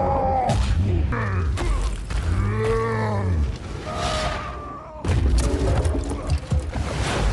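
Action-film battle sound mix: a deep roar rises and falls about three seconds in over music and crashing, and after a brief drop near five seconds comes a flurry of booms and impacts.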